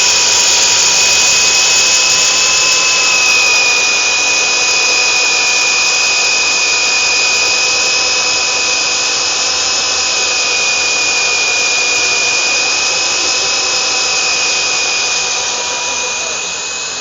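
Husqvarna DM280 electric core drill running steadily under load, its diamond core bit cutting through rebar-reinforced concrete on an automatic feed. It makes a steady high motor whine that eases slightly near the end.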